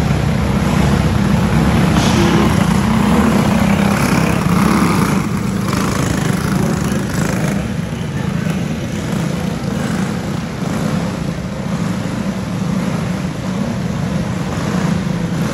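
Several small racing go-kart engines running together as a pack of junior karts circles a dirt track inside an arena. The sound is a steady, dense engine drone that is a little louder in the first few seconds, then evens out as the pack moves around the far end.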